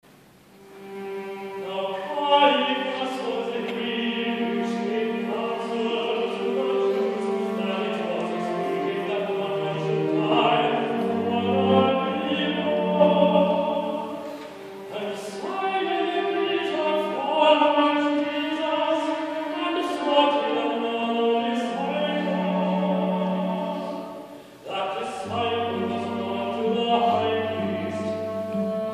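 Live classical choral music: voices singing sustained chords with instrumental accompaniment, a deeper bass line joining about eleven seconds in and again near the end. The sound swells up from quiet over the first couple of seconds.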